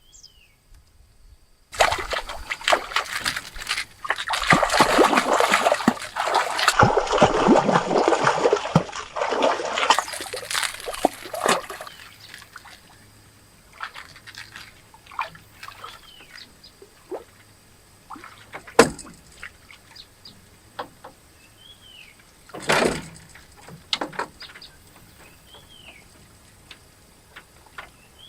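Water splashing and sloshing hard for about ten seconds, then settling into occasional small splashes and clicks, with one sharper knock and one short splash later on.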